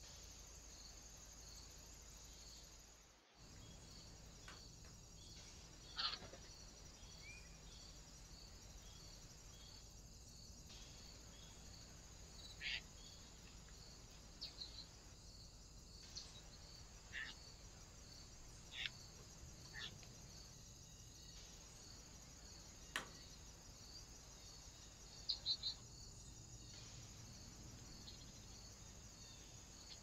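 A cricket chirping in a quick, even pulse, faint over a steady hiss. A handful of short, sharp clicks or taps stand out, with a quick cluster of three near the end.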